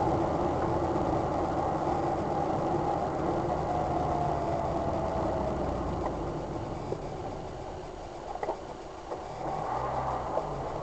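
Car driving slowly on a rough, broken lane, heard from inside the cabin: steady engine and tyre noise with a few short knocks from the uneven surface. It gets quieter about eight seconds in, and the engine note shifts again near the end.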